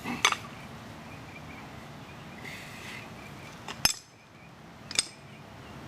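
Three short, sharp clinks or knocks, about a quarter second in, near four seconds and at five seconds, over a steady outdoor background hiss.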